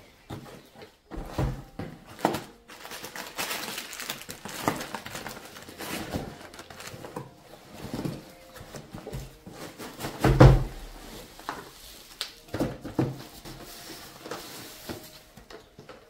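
A cardboard parcel and the white plastic panels of a foldable storage box being handled and unpacked on a table: irregular rustling with scattered knocks and thuds, the loudest thud about ten seconds in.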